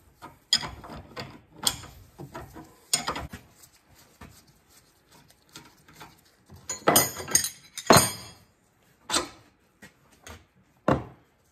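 Metallic clinks and clanks of a wrench working the 24 mm nut off the end of a hydraulic cylinder rod, with tools knocking on the wooden bench; the loudest knocks come in a cluster about seven to eight seconds in.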